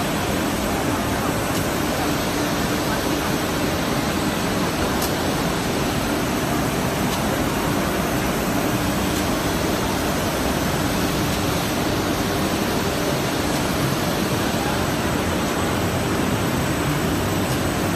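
Brush sanding machine running steadily, its rotating sanding brushes and drive giving a constant, even noise with a low hum and a faint high whine.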